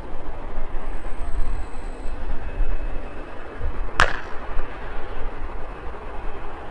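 Steady rumble and hiss of a Korean Air Airbus A220 on the move, with a single sharp click about four seconds in.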